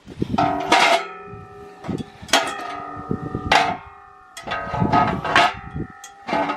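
Steel parts struck or knocked together, clanking several times with a bell-like ring after each strike.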